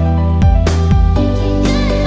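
Background music: held bass and chord notes with a few percussive hits.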